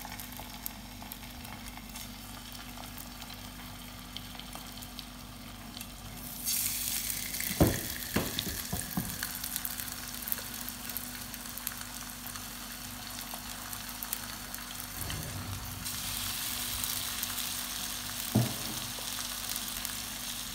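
Marinated fish pieces sizzling in a little hot oil on a flat tawa griddle. The sizzle grows louder about six seconds in and again near the end as more pieces go into the pan, with a few sharp knocks on the pan.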